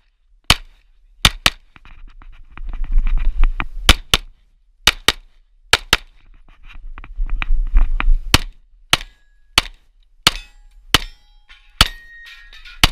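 Handgun fired in quick pairs and single shots, about fifteen sharp reports in strings with short pauses between them, as a shooter works through a practical pistol stage. A low rumbling noise runs between some of the strings.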